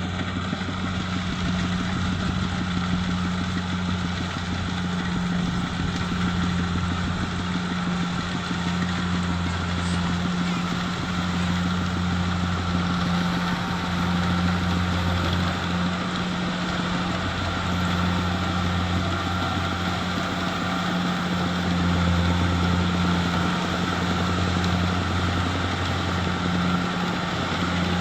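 Rice combine harvester's engine and machinery running steadily at a constant pitch, with a deep drone.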